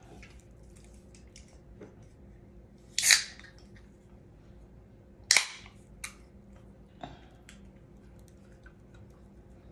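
Aluminium soda can of ginger ale being opened: a sharp pull-tab crack with a short fizzing hiss about three seconds in, a second sharper crack about two seconds later, then a few light clicks of the tab and can.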